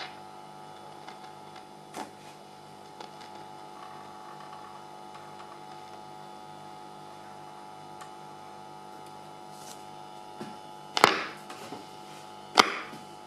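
Orion AR205 Orionette valve radio tuned between stations: a steady hum with faint whistle tones and a few small crackles. Two loud crackles about a second and a half apart come near the end.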